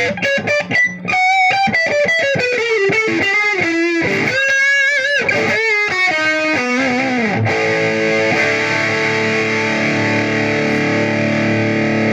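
Electric guitar played through a Marshall Valvestate 10 amplifier's distorted drive channel: single-note lead phrases with string bends and vibrato, then a chord struck about seven and a half seconds in and left to ring out.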